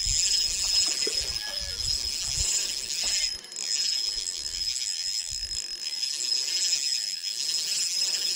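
Shimano 1000-size spinning reel being cranked: a steady high whir from the turning gears and rotor as line is retrieved, with a short pause a little over three seconds in while jigging the lure.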